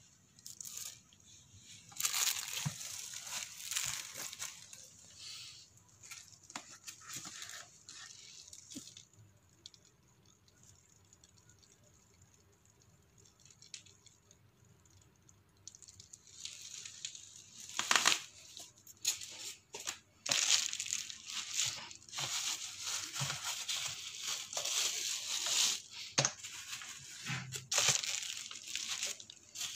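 Clear plastic packaging wrap crinkling and rustling in irregular bursts as it is handled, with a quiet stretch in the middle.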